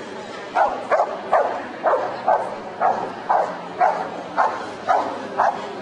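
A Belgian Malinois barking in a steady run, about two barks a second, starting about half a second in.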